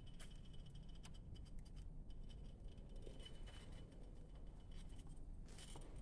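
Faint scattered clicks and scratchy crackling as molten copper is poured from a red-hot crucible into a mold, with a denser cluster of clicks near the end. Under it sits a low rumble and a faint steady high tone.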